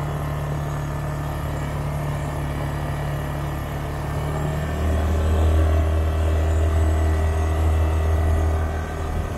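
Quad bike engine running steadily while riding along a dirt track. About five seconds in, its note shifts lower and gets a little louder.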